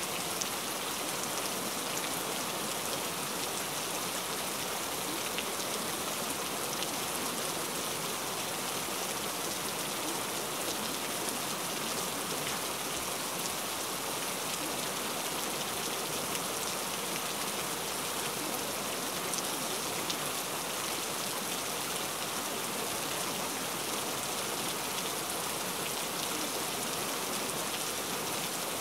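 Steady rain: an even hiss with a fine patter of drops.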